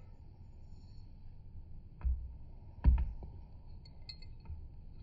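Quiet handling of a small glass dish of pixie crystals: two dull knocks, about a second apart near the middle, with faint clicks of the tiny glass crystals.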